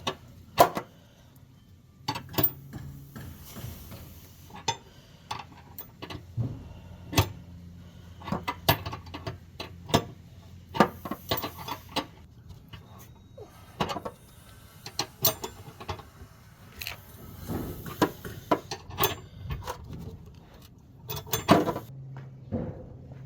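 Hand tools working the trailer hitch's mounting bolts: irregular metallic clicks and clinks of a socket wrench and loose hardware as the bolts are tightened down.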